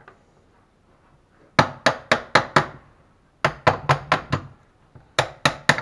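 A car alternator's metal housing being struck with a hammer to knock it apart, in quick runs of about five sharp taps at roughly four a second with short pauses between. A new run of taps starts near the end.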